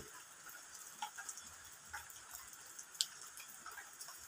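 Faint background ambience: a steady high hiss with scattered soft ticks and one sharper click about three seconds in.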